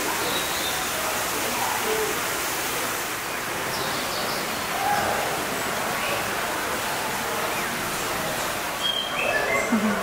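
Steady rush of running water, with a few short, faint, high bird calls over it.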